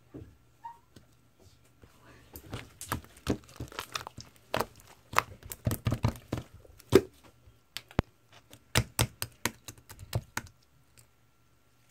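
Slime being squeezed and stretched by hand, giving an irregular run of sharp clicks, pops and crackles that stops near the end.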